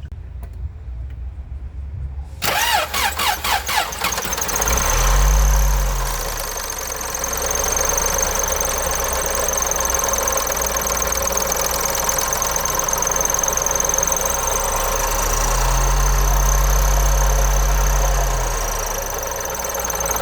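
Toyota engine with a worn VVT-i cam gear: the starter cranks it for about a second and a half, it catches and runs, is revved briefly, idles, and is revved again for a few seconds near the end. The rattle is typical of worn parts in the VVT-i gear assembly, low oil pressure or a faulty oil-control solenoid.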